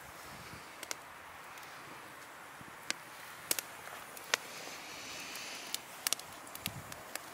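Open wood campfire crackling, with scattered sharp pops over a steady hiss. Dry twigs rustle as they are pushed into a small folding metal wood stove.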